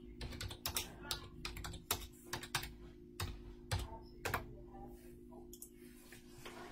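Typing on a computer keyboard: irregular key clicks in quick clusters for about four and a half seconds, over a steady low hum.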